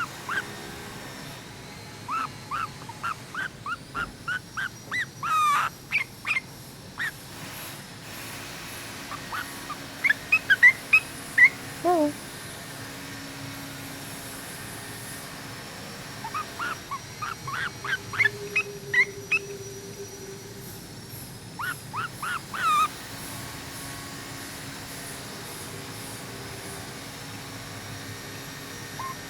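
Pet yellow-vented bulbul giving quick runs of short chirps, several a second, in four bouts with pauses between. Near the middle one call slides steeply down in pitch.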